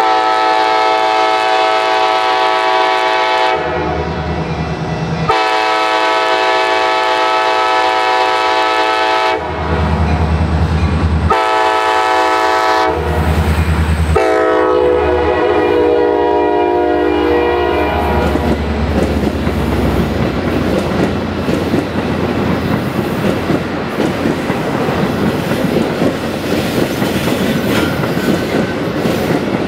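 Metra commuter train's multi-chime horn sounding the long-long-short-long crossing signal as it approaches. The last blast drops in pitch as the train passes. Then the bilevel cars roll by with a steady rumble and the clacking of wheels over the rails.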